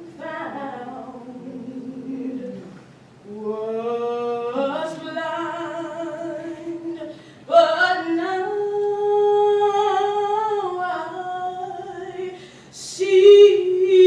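A woman singing a cappella into a microphone, holding long, drawn-out notes with no accompaniment. It grows louder about halfway through and rises to a higher note near the end.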